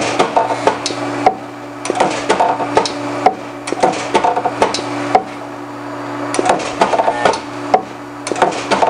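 Foot-pedal, press-type resistance spot welder firing a series of spot welds on sheet steel: a string of sharp clacks and snaps, about one or two a second, as the copper electrodes clamp and each weld fires with a spatter of sparks, over a steady low hum.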